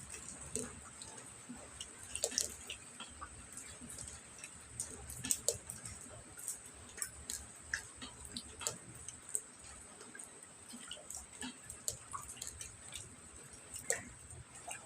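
Rain dripping: irregular drops tapping and plinking at an uneven pace, over a steady thin high-pitched tone.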